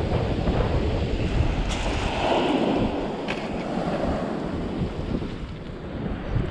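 Waves breaking on a shingle beach, with wind buffeting the microphone in a low rumble.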